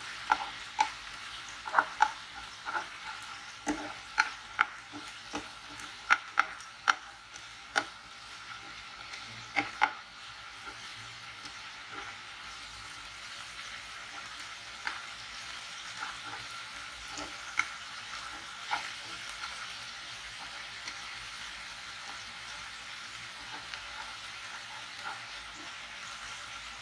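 Marinated chicken strips sizzling steadily in hot oil and butter in a frying pan. Sharp clicks and taps of a spatula against the pan sound as the pieces are turned, mostly in the first ten seconds.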